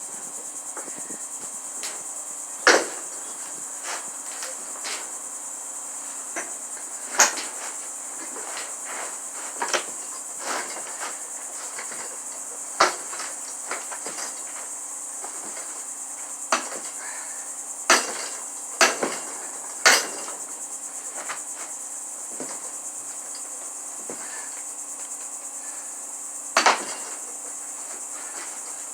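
Hammer blows: about eight loud, sharp strikes at irregular intervals, with lighter knocks between them. Under them, crickets chirp in a steady high drone.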